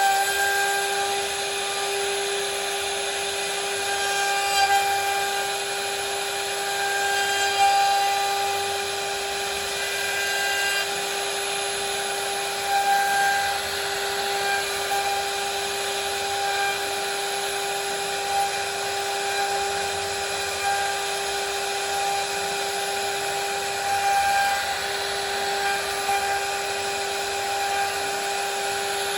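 CNC router spindle running with a steady high whine while its V-bit carves wood, with a few brief louder swells as the cut bites.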